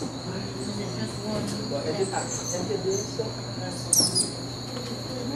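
Tropical forest ambience: a steady, high insect drone, with birds calling over it: a few short high warbled notes about two seconds in, and a sharp, loud downslurred call about four seconds in.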